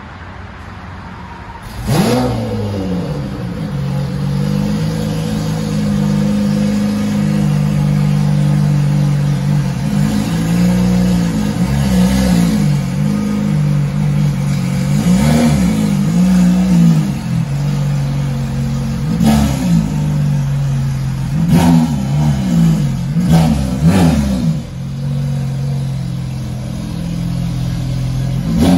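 Lamborghini Aventador V12 with an aftermarket test-pipe and cat-back exhaust starting up about two seconds in with a rising flare, then idling, blipped through several short revs.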